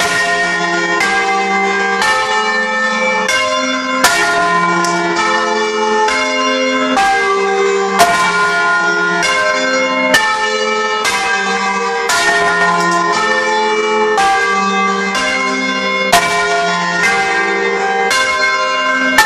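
A set of church bells rung by hand with ropes, heard close up inside the bell chamber. Bells of different pitches strike one after another, about once a second, each ringing on under the next.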